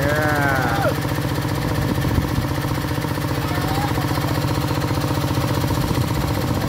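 Engine driving the pond-draining water pump, running steadily with a fast, even beat. A man's voice calls out briefly at the start.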